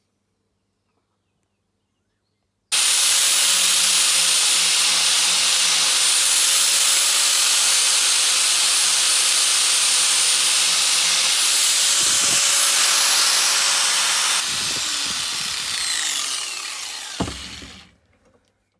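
A power tool running at steady speed with a loud hissy whine cuts in suddenly about three seconds in. About fourteen seconds in it is switched off and winds down, its pitch falling, and it stops a few seconds later.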